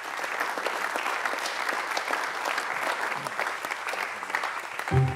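Audience applauding steadily, a dense patter of many hands clapping. Music comes in just before the end.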